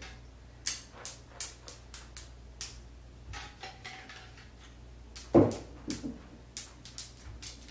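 Light, irregular clicks and taps from fingertips dipping into a plastic cup of bleach and dabbing it onto denim, with one louder knock about five and a half seconds in.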